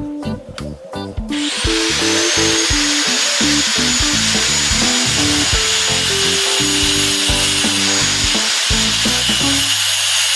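A power tool starts about a second in and runs with a loud, steady, hissing grinding noise, over background guitar music.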